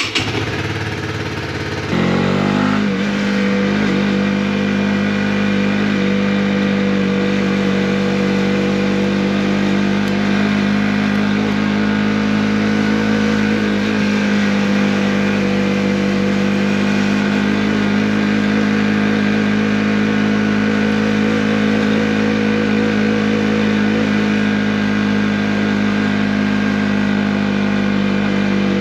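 Honda CB125R's single-cylinder four-stroke engine running; about two seconds in the revs rise briefly, then it holds a steady idle.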